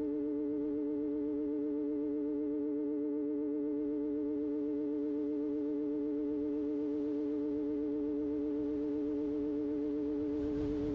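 Electronic science-fiction sound effect: a steady synthesized drone of two held tones with an even warble. A faint rushing noise joins it near the end.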